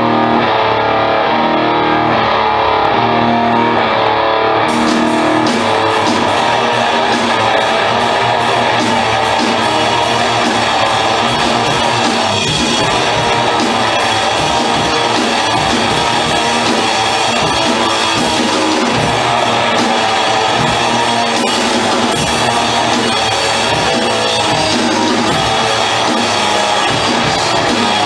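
Live rock band playing loud electric guitars; about five seconds in, the drum kit and cymbals come in with a steady beat and the full band plays on.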